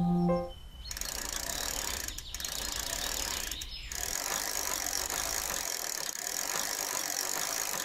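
Bicycle being ridden: a steady ratcheting whir of chain and freewheel, with two brief dips.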